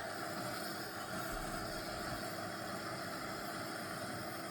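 Steady background hiss with a faint constant hum: machine or room noise with no events in it.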